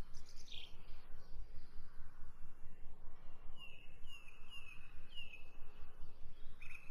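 A small bird chirping: several short, similar chirps in a row about half a second apart from about halfway through, and more right at the end, over a low background rumble.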